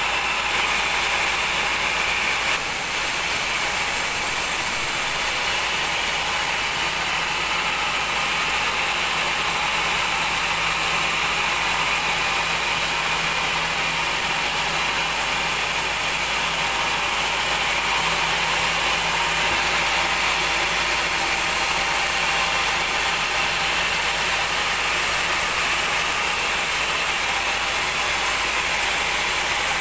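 Large sawmill band saw running and cutting lengthwise through a big mahogany log, giving a steady, dense, hissing mechanical noise. There is a brief dip about two and a half seconds in.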